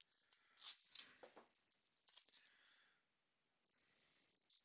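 Masking tape being pulled and torn off the roll and handled, faint: a few short crackling rips in the first two and a half seconds, then a longer soft hiss near the end.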